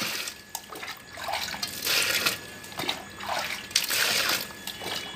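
Water poured from a jug into an aluminium bowl of wild mushrooms, splashing and trickling in several surges as the pour comes and goes.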